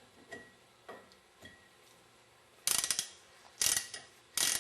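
A 1/4-inch drive ratchet with an Allen socket clicking in quick back-and-forth strokes, driving in the plug that holds the pump's pilot check ball and spring. A few faint clicks come first, then three loud bursts of ratcheting about a second apart in the second half.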